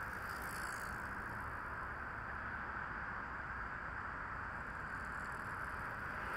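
Steady outdoor ambient noise, an even hiss with no distinct events.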